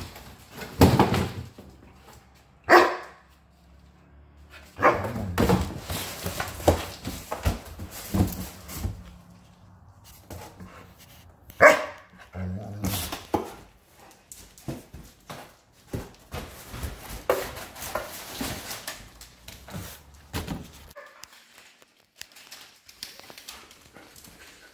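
German Shepherd barking on and off in short, loud bursts, with cardboard rustling and knocking from a shipping box between the barks.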